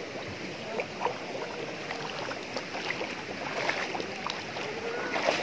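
Forest stream running over rocks, with scattered small splashes and knocks.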